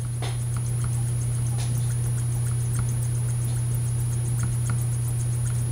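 Steady low hum, with faint scattered light clicks and scrapes from a small hand tool working on a harmonica reed plate during reed embossing.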